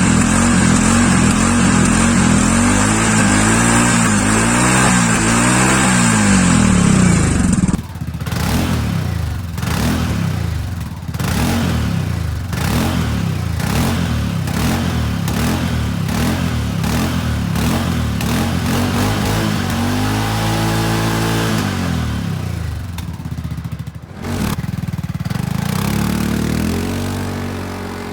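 Segway Snarler 600 ATV engine running steadily, then from about eight seconds in revving up and down over and over, with a longer climb in pitch around twenty seconds in.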